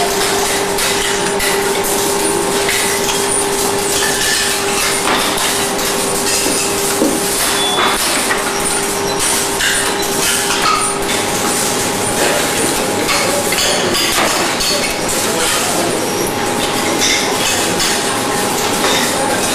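Steady workshop machinery noise with a continuous hum that stops about halfway through, and scattered small clicks and clinks.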